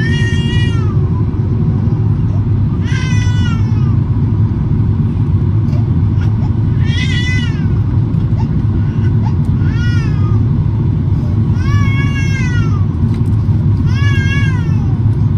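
Steady airliner cabin rumble of engines and airflow on approach, with an infant crying over it in six short wails that each rise and fall.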